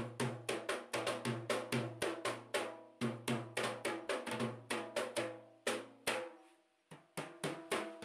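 Drums beaten in a fast, driving rhythm of several strokes a second, each stroke ringing with a low pitched tone. The drumming breaks off about six seconds in and starts again just before the end.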